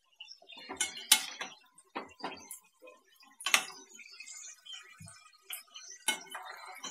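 Perforated steel skimmer clinking and scraping against a steel bowl and a steel kadhai of hot frying oil: about five sharp knocks, the loudest about a second in and about three and a half seconds in.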